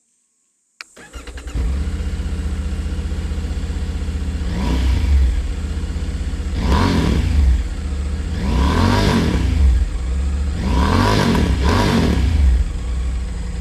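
Triumph Tiger 900 motorcycle's inline three-cylinder engine cranked and started about a second in, settling into a steady idle. It is revved four times, each a quick rise and fall in pitch, then drops back to idle.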